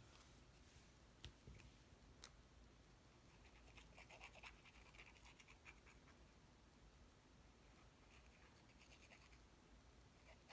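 Near silence, with faint scratching of a fine-tip glue bottle's nozzle drawn over cardstock, a few times about halfway through and near the end. A few light clicks of paper pieces being handled.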